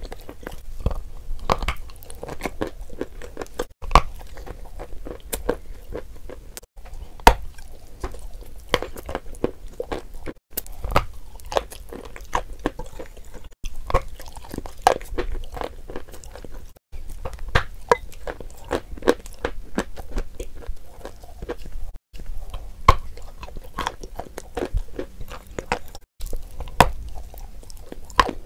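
Close-miked biting and chewing of a crumbly lump of chalk: sharp crunches come several times a second, broken by short gaps of silence every few seconds.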